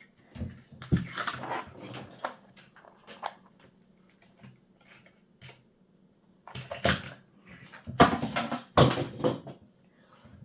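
Bursts of small clicks and knocks from handling a laptop's RAM modules and plastic case parts, in several short clusters with quiet gaps between.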